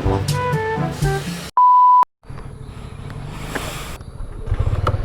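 Background music ends about a second and a half in, cut by a loud, steady beep lasting half a second. After a moment of silence, a low outdoor background comes in, with a motorcycle engine running low near the end.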